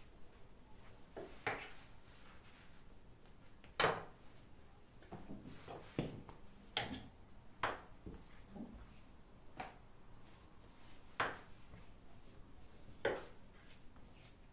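Scattered sharp knocks and clunks of kitchen handling, about eight spread out with gaps of one to two seconds between them. The loudest comes about four seconds in.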